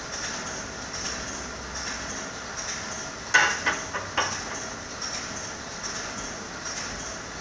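Label-tape winding machine running with a steady, rhythmic mechanical clatter, with three or four sharp clacks a little past the middle, the first the loudest.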